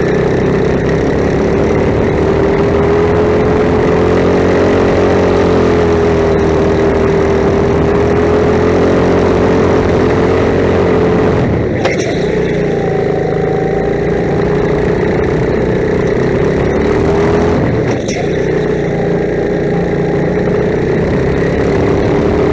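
Go-kart engine running hard, heard from the driver's seat right beside it. Its note holds high with small wavers and drops briefly twice, near the middle and again a few seconds later, as the throttle is lifted for corners, then climbs back.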